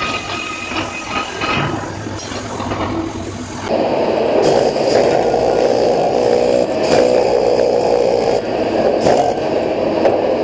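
Steel scraping and clattering against a steel vessel head as the fresh stick weld around a nozzle is cleaned. It grows louder and steadier about four seconds in, with a few sharp knocks.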